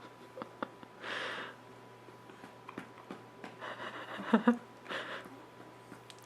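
A baby's breathy snuffles and small grunts while being burped: three short breathy noises, with two brief sharp sounds about four seconds in that are the loudest.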